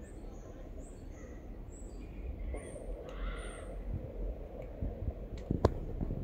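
Bird chirps and a harsh, caw-like bird call about three seconds in, over a low steady rumble. A single sharp click sounds near the end.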